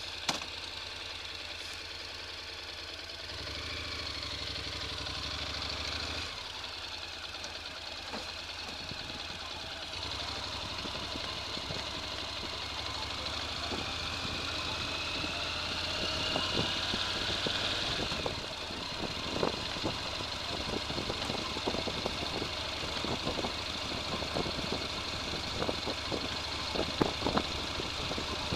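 A small vehicle's motor running steadily with a high whine. About halfway through, the whine rises in pitch. In the second half, many sharp rattling knocks and clicks join in.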